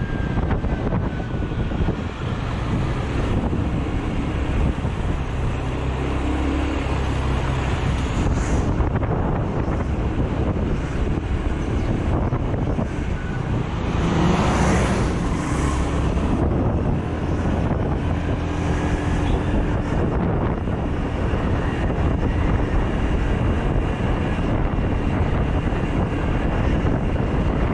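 Wind buffeting the microphone of a small motor scooter on the move, over its engine and road noise. About halfway through, a large bus alongside makes the noise briefly louder.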